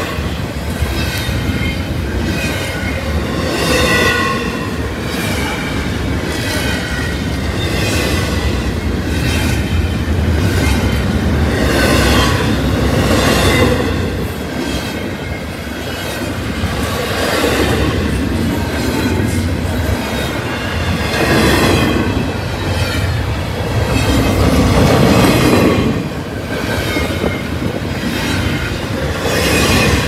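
Double-stack intermodal train of loaded container well cars rolling past at close range: a continuous rumble and rattle of steel wheels on the rails, rising and falling as the cars go by, with intermittent wavering high squeals from the wheels.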